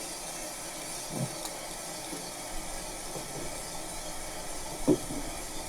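Coffee roaster running with a steady hiss, the beans at their turning point soon after being charged with no heat. A brief vocal sound about five seconds in.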